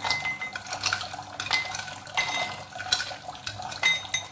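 Ice cubes dropped into a drinking glass: several sharp clinks and knocks, each with a short glassy ring.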